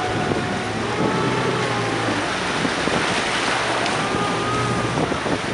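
Motorboat running at sea: a steady low engine hum under the rush of water and wind buffeting the microphone.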